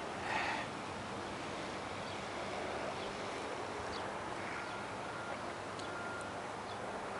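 Steady outdoor wind noise under a dark storm sky, with a brief higher-pitched sound just after the start and a few faint short tones in the middle.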